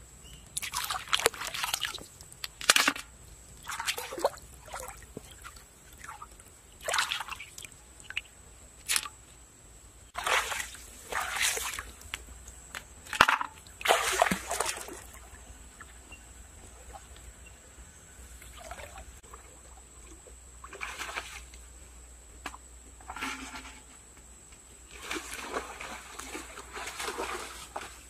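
Wet mud being sloshed and slapped, in irregular short bursts with a few sharper slaps among them.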